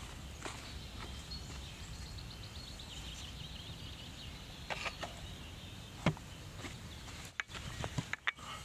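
Outdoor ambience: a steady low rumble with birds chirping, including a fast trill about three seconds in. A few sharp clicks and knocks from handling gear, the loudest about six seconds in.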